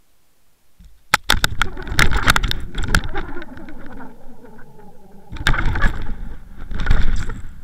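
Underwater camera knocked about by a mirror carp thrashing against it as it takes the bait, heard underwater: sharp clicks and knocks over a low rumble, starting about a second in and coming in two loud spells with a quieter stretch between.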